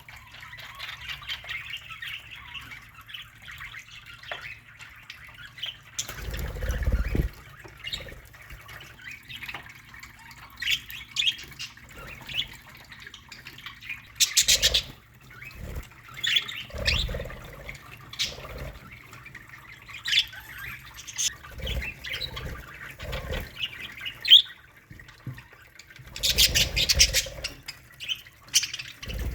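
Budgerigar colony chattering with scattered chirps and squawks. Louder bursts of wing flapping come about six seconds in and again near the end.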